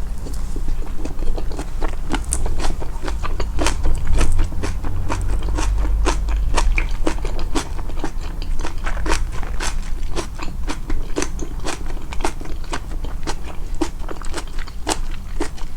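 Close-miked, amplified chewing: a person biting and chewing food with many sharp crunches and wet clicks, several a second, over a steady low rumble.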